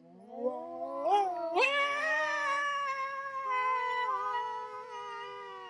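A single long, high wail that rises steeply in its first second or so, then is held with a slight waver and slowly sinks and fades, like a drawn-out caterwaul.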